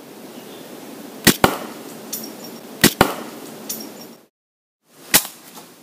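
Hunting slingshot rifle shooting: three shots, each a sharp crack as the stretched rubber bands are released. The first two come as quick double cracks, one just after 1 s and one just before 3 s, and a single crack follows near the end. Steady outdoor background noise runs underneath.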